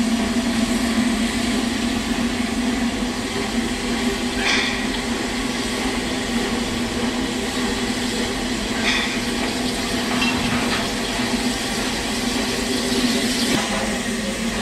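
Baldwin 2-6-0 steam locomotive No. 2 standing in steam with a steady low hum, broken a few times by short hisses of steam.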